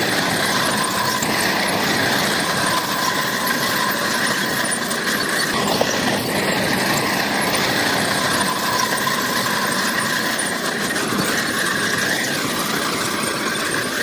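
Crawler bulldozer working, its diesel engine running under a loud metallic squeal from the steel tracks, the squealing swelling and fading every few seconds.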